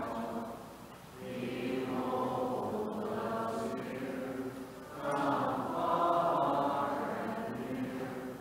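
A small group of voices singing a slow, chant-like hymn together in long held phrases, with short pauses for breath about a second in and again near five seconds.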